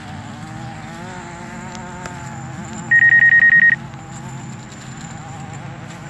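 A DJI Mavic quadcopter's propellers whine steadily, wavering slightly in pitch. About three seconds in, a rapid run of about ten loud, high electronic beeps lasts just under a second.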